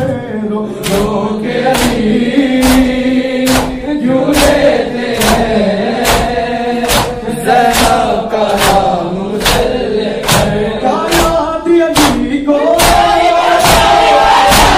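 Urdu noha sung by a male reciter with backing voices, a slow mournful lament. A steady beat of sharp strikes, about one every 0.8 s, keeps time under the voice in the manner of matam chest-beating.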